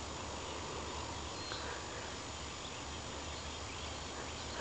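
Steady outdoor background noise: an even hiss with a faint low rumble and no distinct events.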